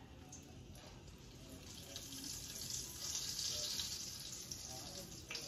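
Potato patties frying in hot oil in a skillet: a sizzling hiss that swells about a second in, is strongest about halfway through, then eases off, with a light click near the end.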